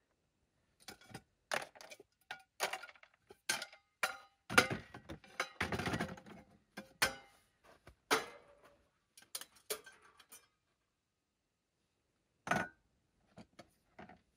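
Metal camp cookware and utensils being handled and set down: a busy run of clinks and clatters, then a pause and a single knock near the end.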